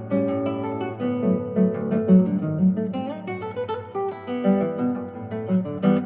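Solo classical guitar played fingerstyle: a quick run of plucked melody notes over a low bass note that rings on underneath.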